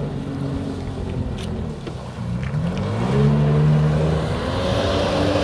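Jet ski engine running steadily, easing off about two seconds in, then revving up with a rising pitch and getting louder, with another rise near the end.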